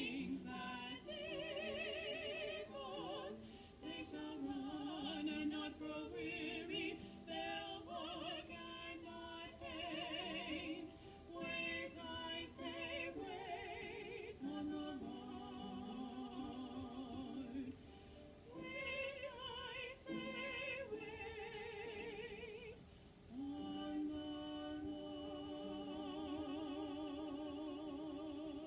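Two women singing a duet together, their held notes carrying a wide vibrato, in phrases with short breaths between them. A long note is held through the last five seconds or so.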